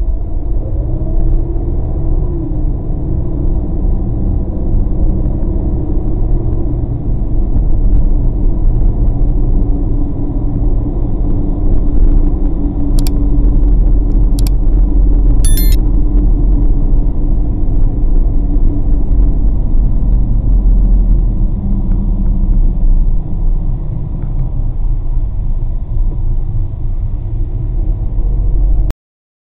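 Steady low rumble of a car driving, engine and road noise heard inside the cabin through a dashcam microphone. About halfway through, a few sharp clicks and a short chime from a subscribe-button animation cut in, and near the end all sound stops abruptly.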